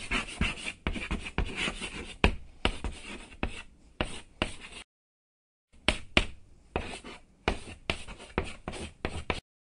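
Chalk writing on a chalkboard: quick scratching strokes and taps. It breaks off completely for about a second near the middle, resumes, then cuts off abruptly near the end.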